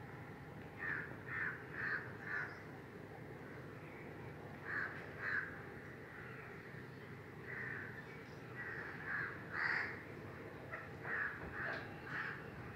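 A bird cawing in short runs of harsh repeated calls: four caws about a second in, two more near the middle, and further runs of caws in the second half, over a steady outdoor background noise.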